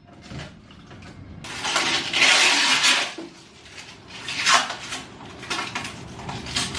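A scratchy rustle, like plastic or packaging, lasting about a second and a half, then a few light knocks and clinks of kitchen items being handled.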